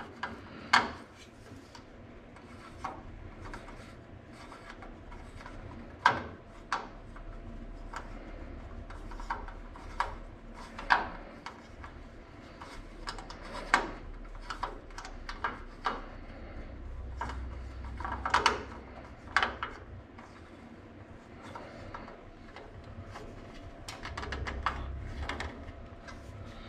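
Screwdriver turning a stainless steel machine screw into a chrome headlight trim bezel: soft scraping and rubbing of metal on metal, broken by irregular sharp clicks as the blade slips and reseats in the screw head.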